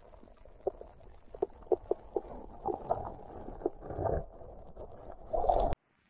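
Muffled underwater sound on a riverbed, heard through a submerged camera: irregular soft clicks and knocks over a low water rumble, swelling louder twice before cutting off abruptly near the end.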